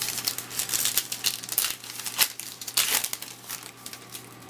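A trading card pack's wrapper being torn open and crinkled by hand, a dense crackling that dies down about three and a half seconds in.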